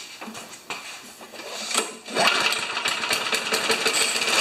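Tecumseh lawn mower engine being pull-started on a few squirts of gas poured into the cylinder, with its tank empty: a few clicks, then about two seconds in it catches and runs with rapid, rough firing.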